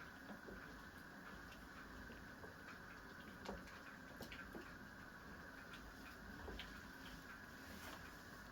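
Quiet kitchen: faint, irregular light clicks and ticks over a steady low hum, with one slightly louder click about three and a half seconds in.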